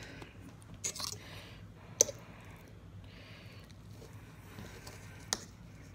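A few sharp clicks and soft crackling of a plastic water bottle being capped and handled, then a fork clicking and scraping on a plate as food is cut. The sharpest click comes about two seconds in.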